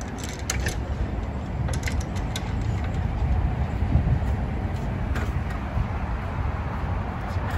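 Fibreglass extension ladder being handled and raised, giving a few light knocks and clicks over a steady low background rumble.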